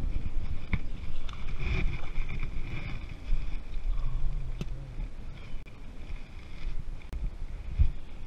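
Wind buffeting the microphone as an uneven low rumble, with a few small clicks and handling knocks.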